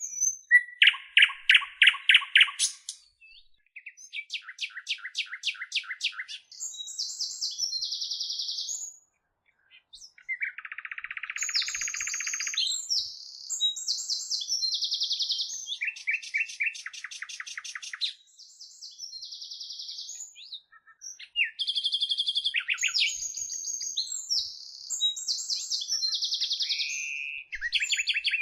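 Bird song: a long, varied run of rapid trills, buzzy phrases and short high whistles in quick succession, with a brief pause about nine seconds in.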